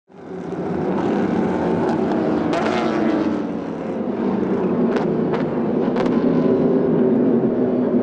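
Pack of endurance race cars' engines running together, many engine notes overlapping into one loud, steady sound, with a few short sharp cracks in the middle.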